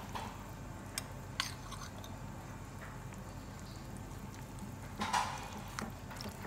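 A ladle knocking against the side of a metal pot while short noodles are stirred into the broth: two sharp clicks about a second in and a louder clatter about five seconds in, over a steady low hum.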